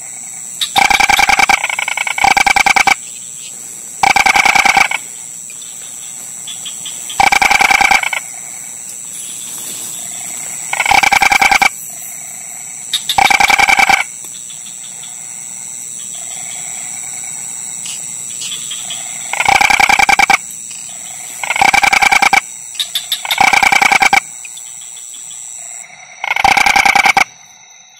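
Double crested toad (Ingerophrynus biporcatus) calling: about ten short trills, each under a second long, repeated at irregular gaps of one to several seconds. A steady high-pitched whine runs in the background and stops near the end.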